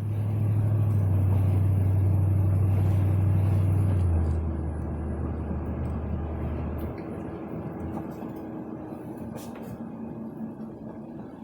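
1978 Lincoln Continental Town Car's 460 cubic-inch (7.5 L) V8 running on a test drive: a loud low drone that drops in pitch about four seconds in and dies away by about seven seconds, leaving a quieter steady driving rumble.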